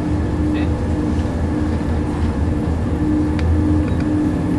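Class 170 Turbostar diesel multiple unit heard from inside the carriage: its underfloor diesel engine and running gear give a steady hum over a low rumble as the train moves off along the station platform, with a few faint clicks.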